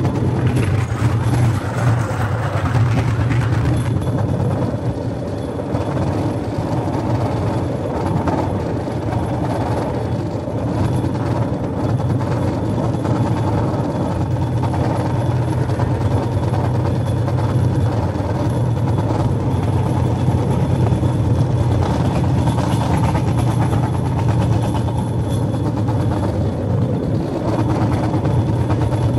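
Engine of a Cambodian norry (small rail trolley) running steadily while it travels along the track: a constant low hum with a haze of running noise over it.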